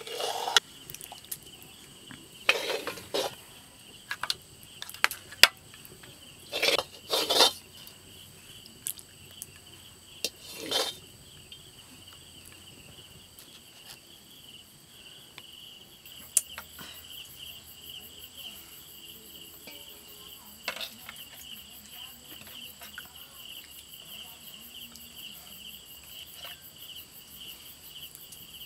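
Metal ladle clinking and scraping against a steel bowl of mutton curry, several strokes in the first eleven seconds. Steady high insect chirring runs underneath throughout, joined by a fast pulsing trill from about the middle on.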